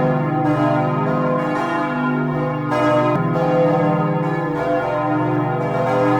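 A peal of four swinging church bells ringing together, their strokes overlapping in a steady, dense clang: the call to Sunday evening mass.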